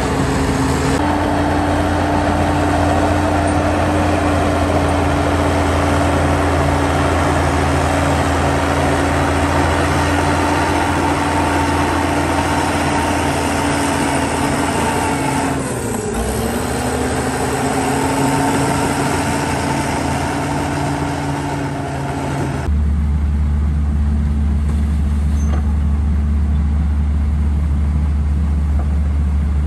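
Heavy diesel earthmoving machinery running steadily. About halfway through, the engine note sags and climbs back as if under load. Near the end the sound switches abruptly to a deeper, steadier drone.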